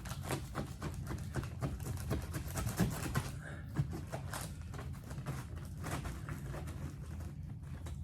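A knife sawing through a fried chicken sandwich to cut it in half: a quick run of short scraping, crunching strokes.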